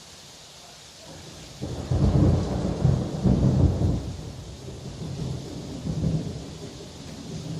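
Steady heavy rain, with a clap of thunder breaking in sharply about a second and a half in and rolling on as a long, fading rumble.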